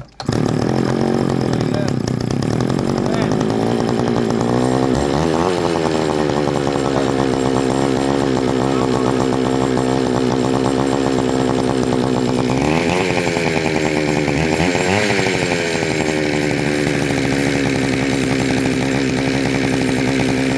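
McCulloch Pro Mac 610 two-stroke chainsaw engine catching at once and running steadily, its revs twice dipping and picking back up.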